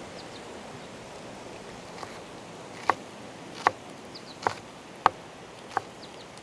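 Knife cutting onion on a cutting board: sharp single chops, a faint one about two seconds in, then five more at a steady pace of about one every three quarters of a second, over a steady hiss.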